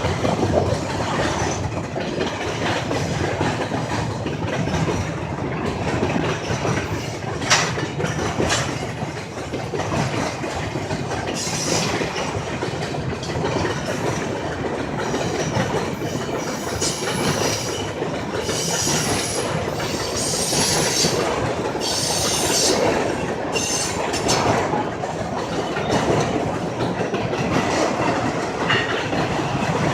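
Freight train rolling past, its cars rumbling and clattering steadily on the rails, with short bouts of high-pitched wheel squeal from about a third of the way in.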